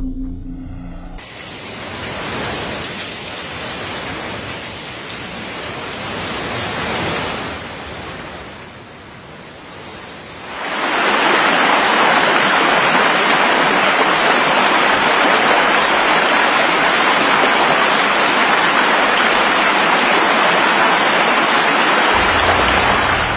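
Heavy rushing water, a steady hiss-like noise that swells much louder about ten seconds in and holds, then cuts off abruptly at the end.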